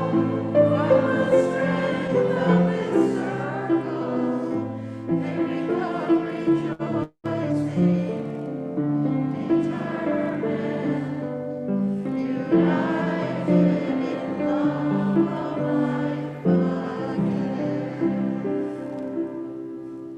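A congregation singing the closing hymn together in held notes, cutting out briefly about seven seconds in and fading near the end.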